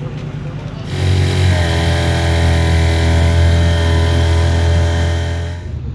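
Outboard motor of an inflatable rescue boat running. About a second in it becomes much louder and holds steady for several seconds, then drops back near the end.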